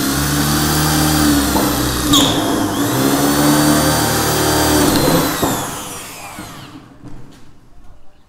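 Corded electric drill boring small rivet holes through thin galvanized steel, the outlet collar's flange and the gutter beneath. The motor runs steadily with a brief catch about two seconds in, then winds down a little after five seconds. A few faint knocks follow.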